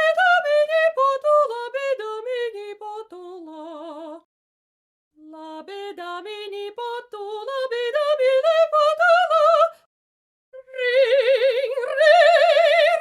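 A female operatic voice singing unaccompanied. It runs quickly down a scale, pauses, climbs back up, and about a second after that takes up a long held note with wide vibrato.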